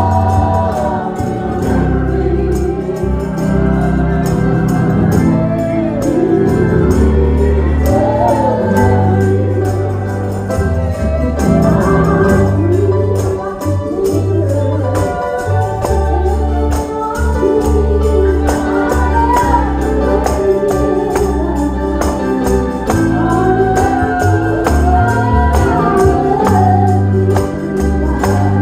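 Gospel song sung by several voices together, accompanied by keyboard with deep bass notes and a steady percussion beat.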